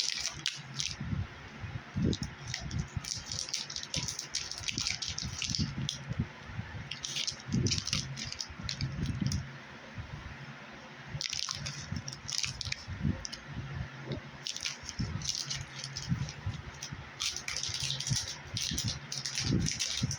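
Sand and small plastic toy pieces being handled: bursts of crackly rattling and scraping, a second or two at a time, with soft knocks in between.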